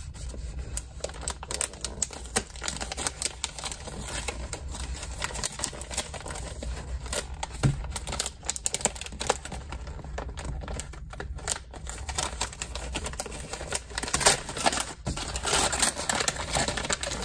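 Gift-wrapping paper crinkling and tearing as the tape is pulled loose and the wrapping is ripped open on a box. There are many small crackles and rips throughout, and the loudest rips come near the end.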